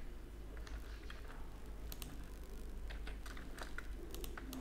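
Faint, scattered clicks of computer keyboard keys being pressed as shortcuts, more frequent in the second half, over a low steady hum.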